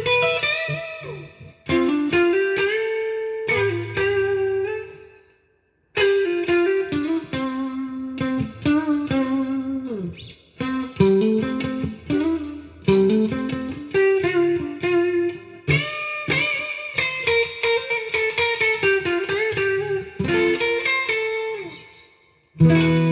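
Ibanez RG350EX electric guitar, set to the middle and neck single-coil pickups together, played clean through a Roland Blues Cube BC-60 amp with its built-in reverb. It plays picked chords and single-note phrases, with a short break about five seconds in.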